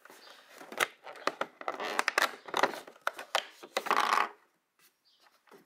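Perforated cardboard door of a The Body Shop advent calendar being torn open and pulled back by fingers: about four seconds of scraping, crackling and tearing with sharp snaps, then a few faint ticks.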